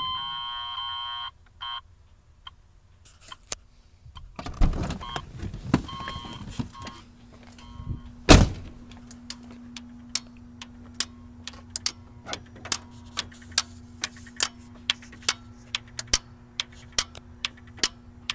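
A two-tone electronic warning chime cuts off about a second in, and a few knocks follow. About eight seconds in comes a loud click; after it a steady hum sets in and an electrical relay ticks on and off over and over, about one and a half times a second. The owner takes the ticking for something in the truck's electrics resetting all the time.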